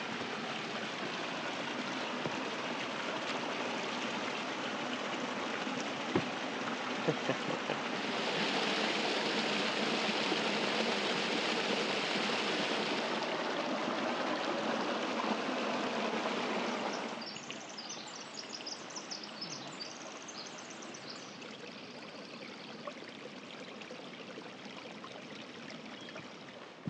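Water of a mountain creek rushing steadily, louder for a few seconds about a third of the way in. About two-thirds through it cuts off abruptly, leaving a much quieter background with faint high ticking.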